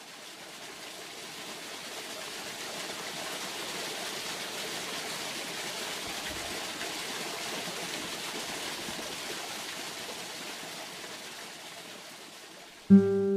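Running water, a steady stream-like rush that fades in at the start and fades out near the end. Just before the end, acoustic guitar music starts abruptly.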